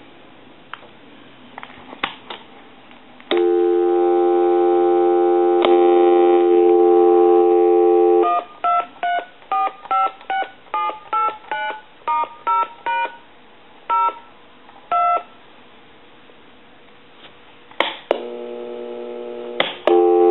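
Harris TS22 lineman's butt set on a phone line: a few clicks, then a steady dial tone for about five seconds, then a quick run of about a dozen touch-tone (DTMF) digits being dialed, with two more spaced about a second apart. Near the end a click and a steady line tone comes back.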